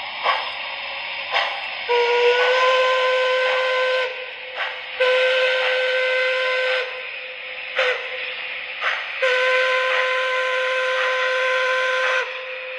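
Sound system of an MTH O-gauge Appalachian Timber Shay model locomotive playing a steam whistle: three blasts, the last and longest about three seconds, the first sliding up slightly as it opens. Under them runs a steady hiss of steam with a few short puffs between the blasts.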